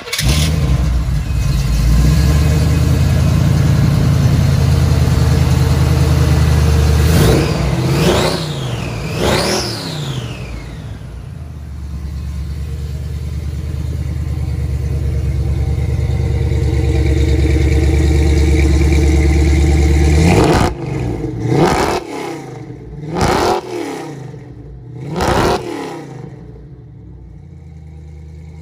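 1985 Chevrolet K5 Blazer's V8 engine running loud through its exhaust, blipped up and back down twice about a third of the way in. Near the end it gets three more quick revs, then settles to a quieter idle. The engine is fully warmed up.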